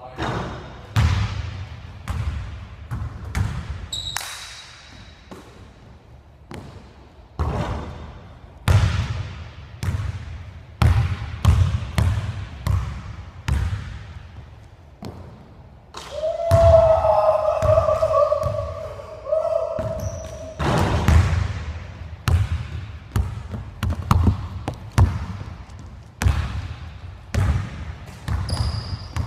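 Basketball bouncing again and again on a hardwood gym floor, each bounce echoing in the hall, with a few short high sneaker squeaks. Past the halfway point a held tone lasting about three seconds is the loudest sound.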